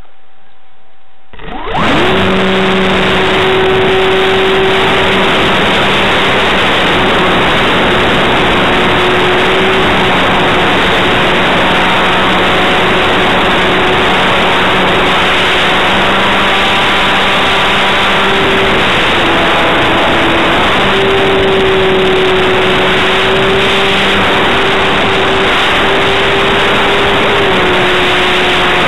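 Brushless electric motor and propeller of a Minimag RC plane at high throttle, picked up by the onboard camera right behind the prop: a loud rushing noise with a steady hum whose pitch drifts slightly with throttle. It starts suddenly about a second in.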